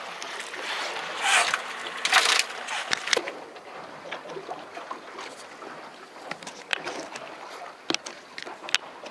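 Handling noise on a fishing boat's deck: two short rushes of noise about a second and two seconds in, then scattered light clicks and knocks.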